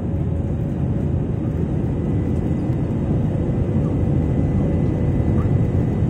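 Steady cabin noise of an Airbus A320-family airliner in flight: its jet engines and the airflow heard from inside the cabin as a low, even rumble with a faint steady hum over it. It grows slightly louder over the few seconds.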